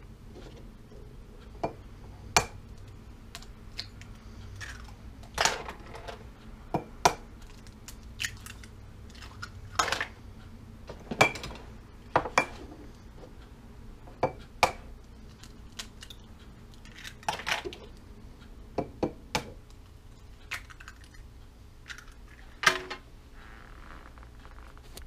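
Eggs tapped and cracked against small glass mason jars and the jars handled on the counter: irregular sharp clicks and glassy clinks, some in quick pairs.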